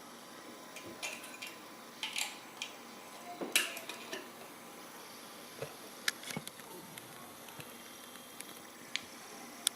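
Irregular light clicks and clinks of small metal parts being handled, consistent with a toy gyroscope being picked up and moved about; the sharpest knock comes about three and a half seconds in.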